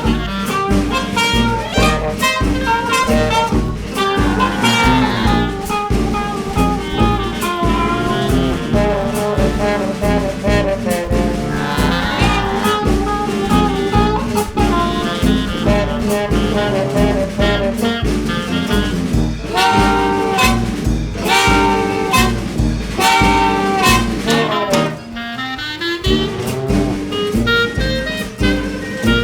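Upbeat jazzy background music with brass and saxophone over a steady drum beat.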